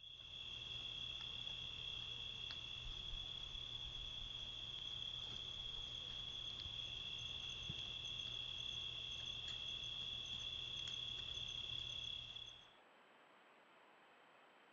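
Crickets trilling in a steady night chorus, one continuous high trill at two close pitches, over a faint low hum. It cuts off near the end, leaving only a faint hiss.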